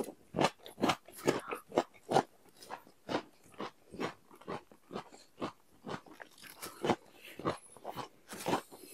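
Close-miked chewing of food with crisp, irregular crunches, two or three a second.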